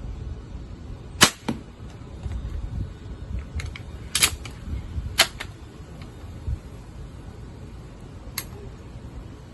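EK Archery Adder repeating pistol crossbow shooting bolts: a sharp snap about a second in, the loudest, followed closely by a smaller knock. More snaps come around four and five seconds in, and a fainter one near the end.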